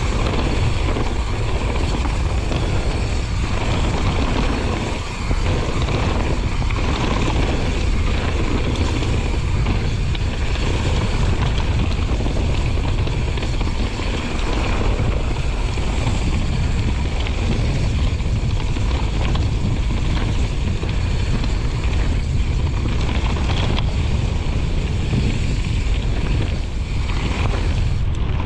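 YT Jeffsy full-suspension mountain bike riding downhill: continuous wind buffeting on the microphone over the rumble of the tyres on the trail, with scattered knocks and rattles from the bike.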